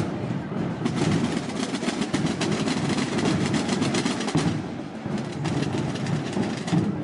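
A drum corps of rope-tensioned side drums (tambores) and large bass drums (bombos) plays together in a fast, dense rolling rhythm. The rapid side-drum strokes thin out briefly twice, about half a second in and around four and a half seconds, while the deep drumming carries on.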